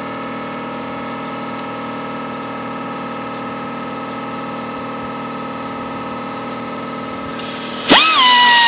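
A steady machine hum for most of the stretch, then near the end a long die grinder starts with a sudden loud, high whine whose pitch jumps up and then sags and wavers as it runs.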